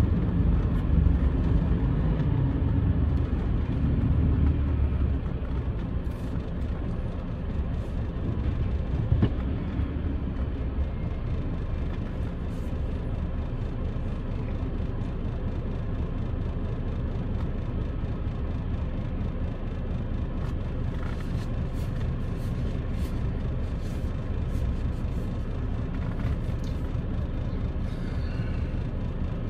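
A vehicle's engine and road noise heard from inside the cab: louder in the first few seconds while it is moving, then a steady low idle while it stands at a red light, with faint scattered clicks.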